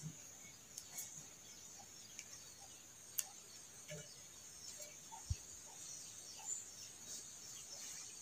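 Faint steady high insect drone, with scattered light clicks and taps from steel pipe parts being handled. Two sharper ticks come about three and five seconds in.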